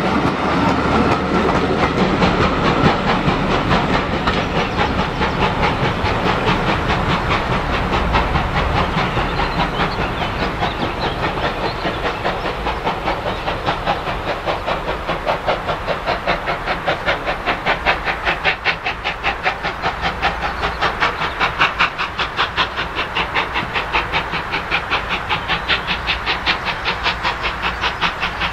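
Steam locomotive working a train of coaches, its exhaust beats chuffing in an even rhythm of about four a second that grows sharper from about halfway through, over the rolling rumble and hiss of the train on the rails.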